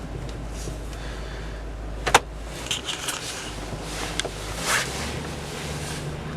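2002 Chevy Avalanche's 5.3-litre Vortec V8 running, with a single sharp clunk about two seconds in. The engine note shifts near the end as the truck is moved.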